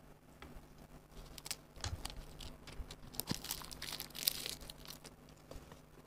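Crisp seaweed sheet crackling and crunching as a wrap of noodles and kimchi is handled and bitten, a scatter of sharp crackles that is densest from about three to four and a half seconds in.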